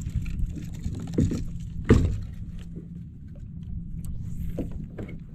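Water lapping against a small fishing kayak's hull over a steady low rumble, with a sharp knock on the hull about two seconds in and a smaller one just before it.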